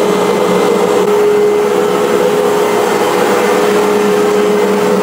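Shop dust collector and CNC router running together: a loud, steady rush of air with a steady whine, the motor having just come up to speed.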